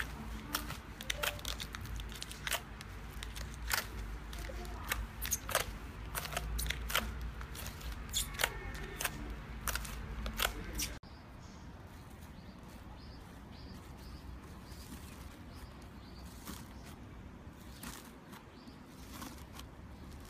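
Slime being squished and kneaded by hand in a plastic bowl, with frequent sharp, sticky clicks and pops. After a sudden cut about eleven seconds in, it turns to quieter, softer squishing with only a few clicks.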